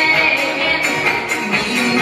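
Music from a song's accompaniment, a backing track with a steady beat.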